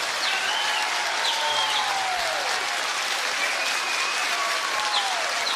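A large studio audience applauding steadily at the end of a song, with a few voices calling out over the clapping.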